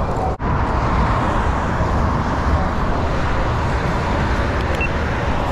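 Steady road traffic noise from cars on a multi-lane road, after a brief dropout in the sound a little under half a second in.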